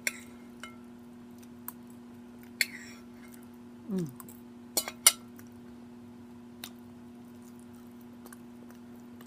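Cutlery clicking against a plate now and then during a meal, with a short low falling mouth or voice sound about four seconds in, over a steady low hum.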